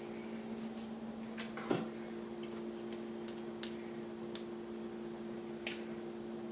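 Kitchen items being handled: a few light clicks and knocks, the loudest about two seconds in, over a steady hum.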